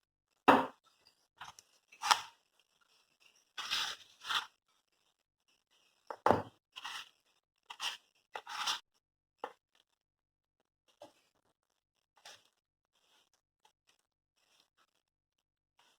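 Cake batter being mixed in a bowl: a utensil scraping and knocking against the bowl in irregular strokes. There are two sharper knocks, one just after the start and one about six seconds in, and the sounds thin out to faint taps over the last several seconds.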